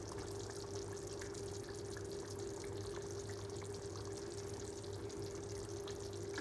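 Pot of chicken curry gravy simmering on a gas stove, with faint bubbling and small ticks over a steady low hum.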